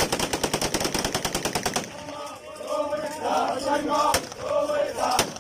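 Rapid automatic gunfire for about the first two seconds, a dense run of shots. Then a man's loud shouted chanting voice, with a few single shots near the end.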